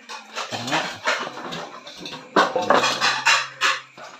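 Dead doves being handled and set down in an aluminium basin: a run of clattering knocks against the metal with feather rustling between them.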